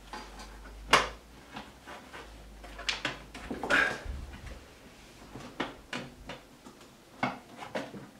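Scattered metal clicks, knocks and scrapes as a rack-mount UPS chassis is pushed and wiggled against its mounting rails, the sharpest knock about a second in.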